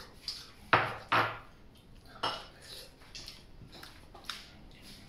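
Chopsticks clicking and scraping against a white porcelain rice bowl while food is shovelled from it: two sharp clinks about a second in, another a second later, then fainter taps.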